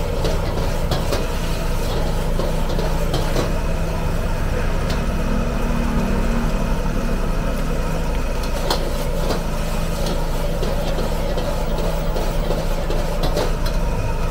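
Stir-frying in a wok over a gas burner: a metal ladle scrapes and clanks against the wok as the vegetables are tossed. Under it is a steady low hum and rush from the burner and kitchen.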